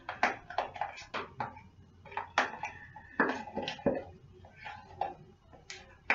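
A spoon stirring a thick hair-grease mixture in a jar, scraping and clicking against its sides in quick, irregular strokes.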